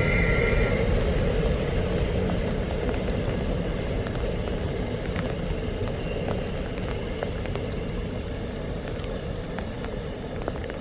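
Container freight train passing and receding, its rumble fading steadily. There is a high wheel squeal at the start, then a higher one from about a second and a half to four seconds in.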